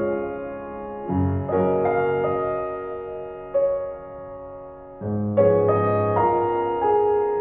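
Slow, gentle piano music: notes and chords struck a second or so apart and left to ring and fade.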